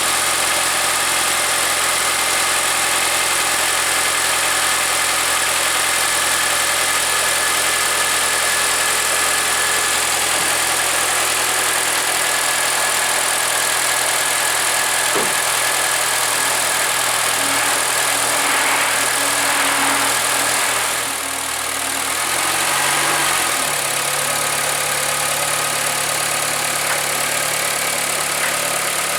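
Honda Accord's K24A four-cylinder engine idling evenly while warming up, its note dipping and shifting briefly about three-quarters of the way through. The owner suspects a knocking connecting-rod bearing, which he hears mainly when revved toward 2000 rpm rather than at idle.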